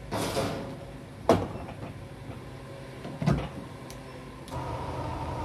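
Fuel-filler and diesel-nozzle handling at a fuel dispenser: a short swish, then a sharp click about a second in and a knock a couple of seconds later as the car's fuel flap and cap are opened. Near the end a steady hum with a thin whine starts up, the dispenser's pump running.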